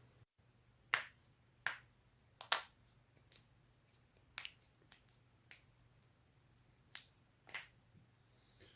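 Human joints cracking during manual adjustment: a series of about nine sharp pops, some coming in quick pairs, a second or so apart.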